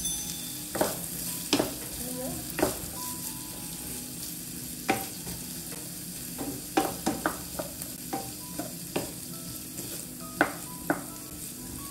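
Chopped onions sizzling in hot oil in a frying pan while a wooden spoon stirs them, scraping and knocking against the pan a dozen or so times at irregular intervals.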